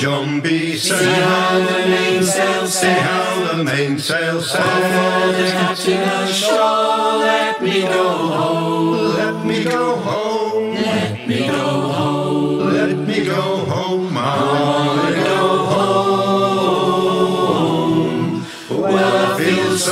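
A group of voices singing a folk song together over strummed acoustic guitars, played without a break.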